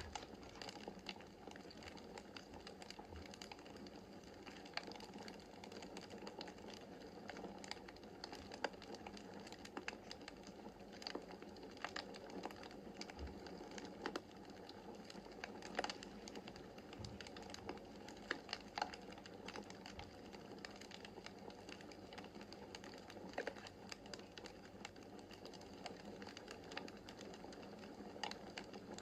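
Wood fire burning in a fireplace: irregular sharp crackles and snaps over a soft, steady rush of flames.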